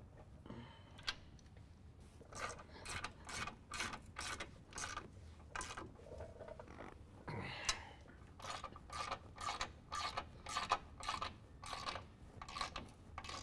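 Hand ratchet with a 19 mm socket clicking in short repeated strokes, about two to three a second, as the bumper bracket bolts are tightened down, with a brief pause midway.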